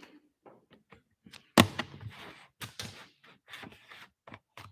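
Irregular clicks and knocks from a laptop being handled at close range, its keys or trackpad being pressed, with one louder thump about one and a half seconds in.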